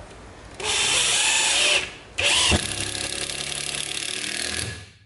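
Hitachi DM2-series cordless impact driver driving a screw into a wooden board in two runs: a short run of about a second, a brief pause, then a longer run of about two and a half seconds that stops just before the end.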